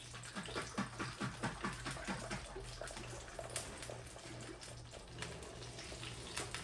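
Liquid sloshing and pouring: heavy cream swirled in an Alfredo sauce jar to loosen the thick sauce, with a run of glugs in the first few seconds, then a steadier pour.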